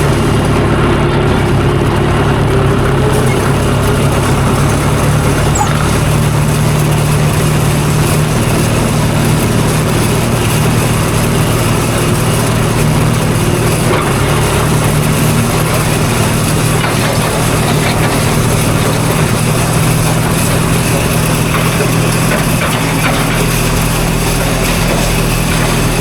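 Diesel tractor engine running steadily under load while pulling a hay rake.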